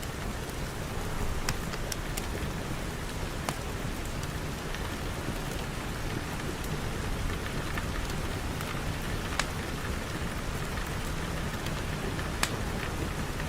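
Steady rain falling, an even rushing hiss, with scattered sharp clicks here and there; the clearest comes near the end.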